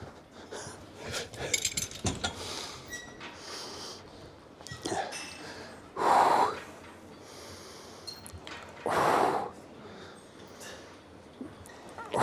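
A man's loud, forceful exhales while straining through cable reps, three of them about three seconds apart, with a few light clicks about a second in.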